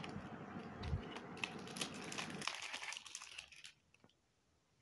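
Plastic packaging of party supplies and number candles crinkling faintly as a hand sorts through them, with small scattered clicks; it stops about three and a half seconds in.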